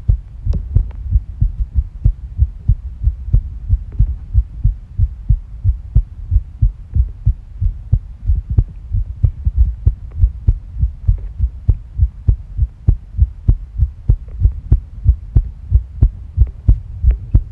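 Human heartbeat picked up directly from the body: a steady, rapid run of low thumps. The fast rate is a racing heart, which the uploader describes as tachycardia.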